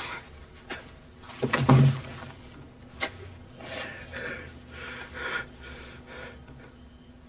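A man breathing heavily and unevenly in distress, with a louder burst of breath about one and a half seconds in, a sharp click near three seconds, and softer breaths that die away toward the end.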